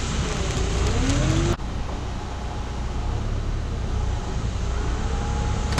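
Dually pickup truck running, a steady low rumble with road noise. The sound breaks off abruptly about a second and a half in and carries on the same, with a short click at the very end.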